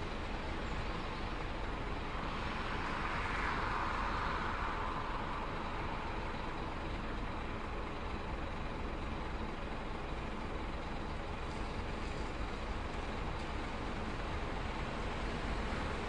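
Bus terminal ambience: a steady low rumble of idling buses and traffic. A rushing hiss swells about three seconds in and fades away over the next few seconds.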